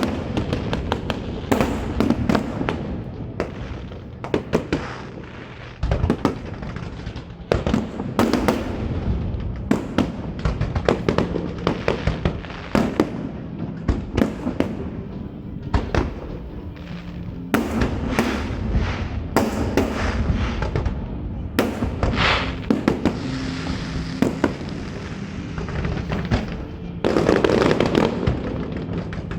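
Aerial fireworks shells bursting one after another in quick succession, sharp bangs and crackling throughout.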